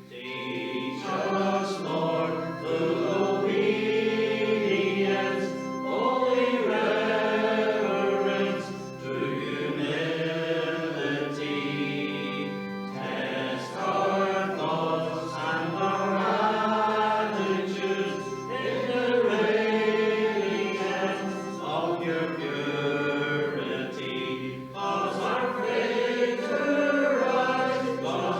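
Congregation singing a hymn together in phrases of held notes, over a sustained instrumental accompaniment.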